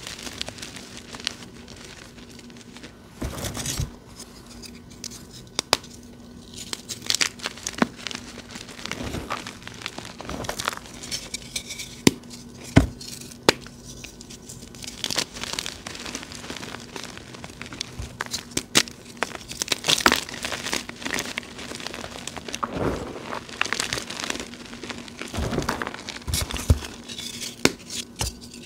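Blocks of dyed gym chalk being squeezed and broken by bare hands: irregular crunching and crumbling, with sharp snaps as pieces crack apart.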